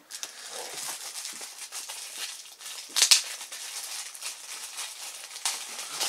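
Clear plastic packaging crinkling as it is handled, with one louder crinkle about three seconds in.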